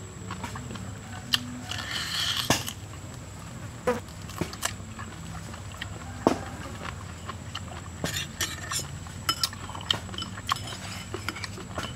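Close-up eating sounds: crispy pig leg torn apart by hand and chewed, with many short crunchy clicks and crackles. A few light clinks of a spoon against a bowl come near the end.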